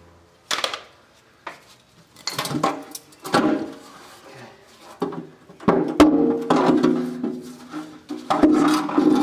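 Sheet-metal oil pan of a Detroit Diesel 8V92 being pulled down off the engine block: irregular metal clanks and scrapes, louder in the second half. The pan rings briefly after the heavier knocks.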